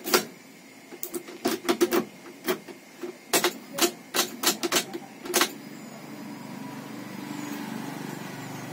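Sharp mechanical clicks of a newly cut key being worked in a Daihatsu Gran Max's ignition lock, several a second for about five seconds. After that a low steady hum sets in and slowly grows louder.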